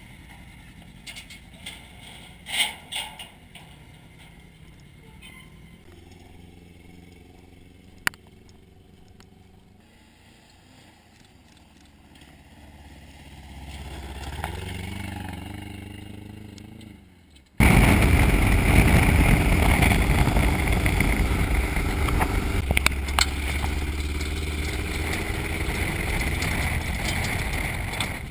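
Off-road race truck's engine running: faint at first with a few sharp knocks, then swelling as the truck drives away on dirt. About two thirds in it suddenly becomes loud and close, heard from inside the cab while driving, engine note and road noise together.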